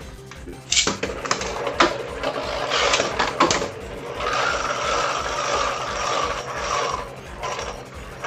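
Spinning Beyblade tops clashing in a stadium, with sharp clacks about one second, two seconds and three and a half seconds in. Then a steady whirring spin for about three seconds that dies away near the end.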